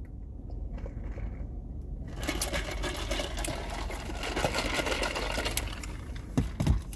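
Dense, rapid crackling rattle that starts about two seconds in and lasts about four seconds, from a plastic drink cup and cardboard food boxes being handled, with a couple of low thumps near the end.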